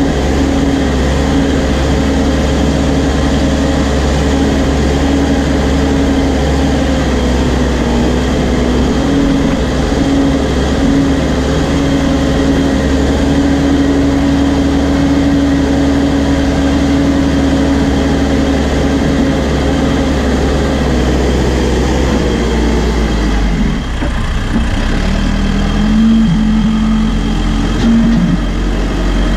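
New Holland B95 backhoe loader's diesel engine running steadily under load while the machine drives with a full front bucket of dirt. About 22 seconds in the engine note drops and settles at a lower, steady pitch as the bucket is lowered to level the ground.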